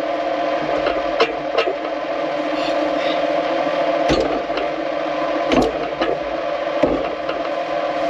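Tractor engine running steadily while pulling a hay rake, with five or so sharp knocks and rattles from the machinery.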